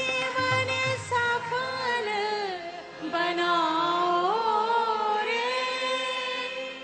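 Women's voices singing a Hindu devotional bhajan to Ram in unison, drawing out long held notes that bend slowly in pitch as a phrase closes.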